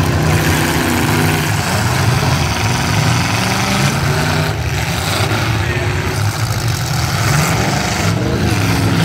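Demolition derby cars' engines running and revving, with voices over them.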